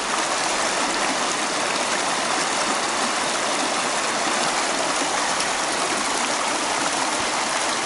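Fast, high river water rushing in a steady, unbroken roar of white noise.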